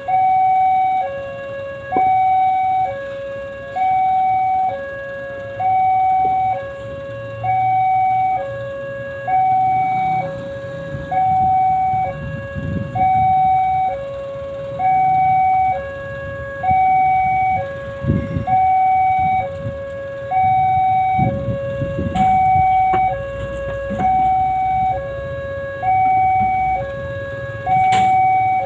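Railway level-crossing warning alarm sounding its two-tone signal, a higher and a lower tone alternating about once a second, warning that a train is approaching. A few low rumbles sound underneath partway through.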